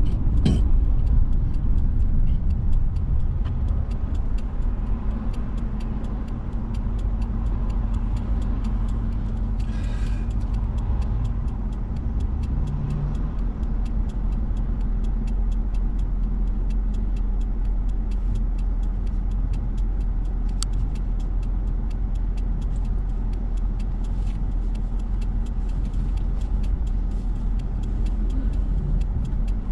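Car cabin noise: a low steady rumble as the car slows and then idles while stopped at a red light, with faint light ticks throughout.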